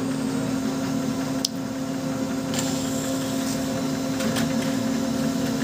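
Brother DCP-L2540DW laser printer running a print job, a steady motor hum with a few light clicks.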